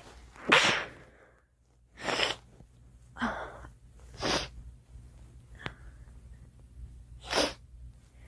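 A girl sneezing repeatedly: about five short, sharp bursts spaced one to three seconds apart, the loudest near the start.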